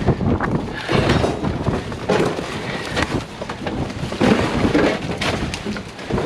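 Gusty storm wind buffeting the microphone in uneven swells, with scattered knocks and rattles.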